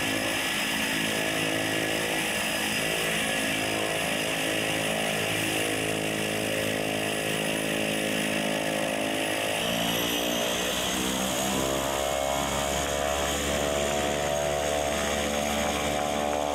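Single-engine skydiving plane's engine and propeller running at idle. About ten seconds in the pitch shifts and a high whine rises as power comes up for taxiing.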